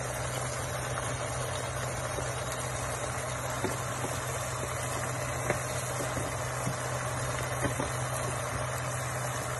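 Tomato masala sizzling and bubbling in a kadai over a steady low hum, with a few light clicks of the spoon against the pan as it is stirred.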